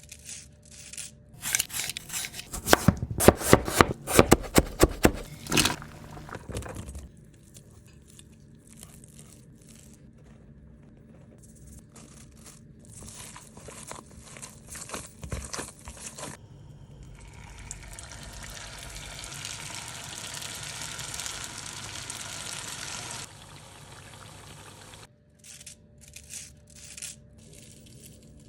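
Food-preparation sounds: a quick run of sharp clicks and knocks, then quieter handling and crinkling, then about six seconds of steady hissing from potato rolls deep-frying in hot oil, and a few clicks near the end.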